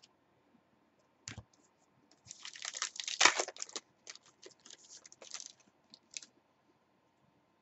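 A foil trading-card pack wrapper being torn open and crinkled, the loudest part about two to four seconds in, after a single click. Lighter scattered clicks and rustles of cards being handled follow.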